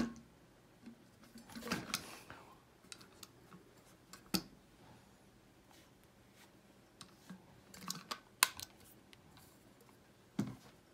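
Sharp plastic clicks from the flip-top lid of a Starbucks JNM-480 vacuum tumbler being snapped open and shut, with handling rustles between them and a duller knock near the end as the tumbler is laid down.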